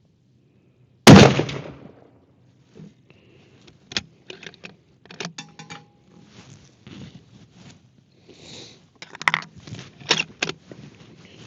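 A single rifle shot from a Ruger Precision Rifle in .308 about a second in, ringing away over about a second. After it comes a run of sharp metallic clicks and clacks, the bolt being worked to eject the spent case and chamber the next round.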